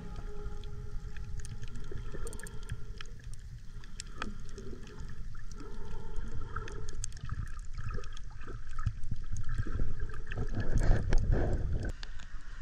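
Muffled underwater water noise: a steady low rumble with scattered clicks and crackles, growing louder with sloshing in the last couple of seconds as the surface is reached.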